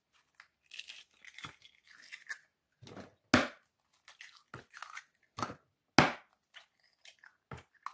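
Hen's eggs being cracked open and broken into a large plastic bowl: a scatter of soft taps and shell crunches, with two sharp cracks, the first about three and a half seconds in, the second about six.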